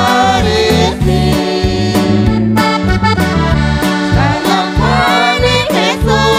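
Several voices singing a Christian song in Q'eqchi' over a live band with keyboard and electric guitar, a steady beat and bass notes.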